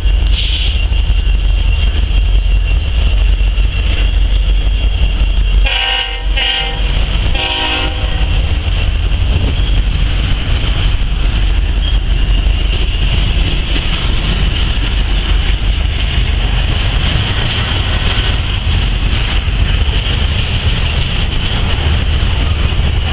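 Kansas City Southern double-stack intermodal freight train rolling past close by, a steady low rumble of wheels on rail. About six seconds in, the train's horn sounds three short blasts.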